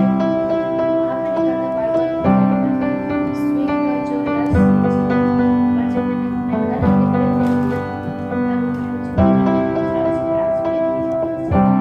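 Background music: an instrumental stretch of a pop song, with held keyboard chords changing about every two seconds.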